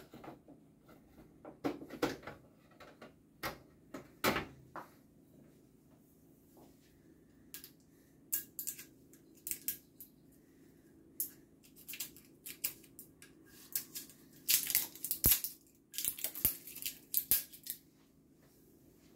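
Intermittent handling noise of unboxing: crinkling and tearing packaging with scattered clicks and knocks of plastic parts. The sounds are sparse at first and become a dense, loud run of crackling near the end.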